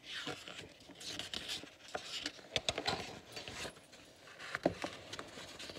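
Pages of a picture book being turned by hand: irregular paper rustling with scattered light clicks and taps.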